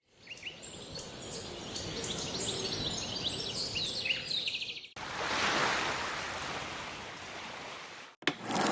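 Many small birds chirping over a steady high hiss. About five seconds in it cuts suddenly to an even rushing noise that slowly fades, and a sharp click comes near the end.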